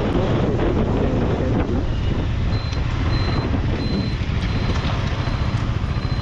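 Yamaha R15M's single-cylinder engine running at low speed under a steady rush of riding wind on the rider's camera, with other motorcycles nearby. From about two and a half seconds in, a faint high beep repeats about twice a second.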